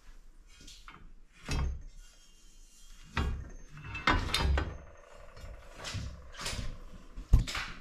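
Snowmobile skid rails being handled on a workbench: the stock rail is lifted and laid against the aftermarket rail, giving a series of knocks and scrapes. The sharpest knock comes near the end.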